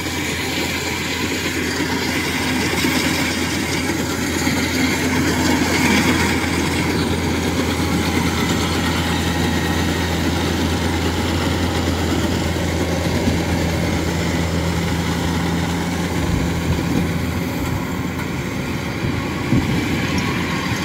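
Kubota rice combine harvester working through standing rice, its engine running at a steady working speed with a constant low drone.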